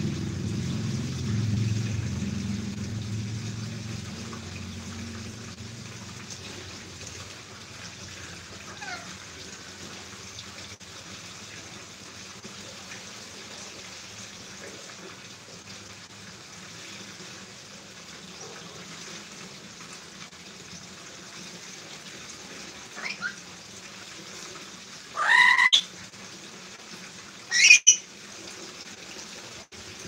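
Lory (nuri parrot) squawking: a few faint calls, then two loud, harsh squawks near the end. A low rumble fades away over the first few seconds.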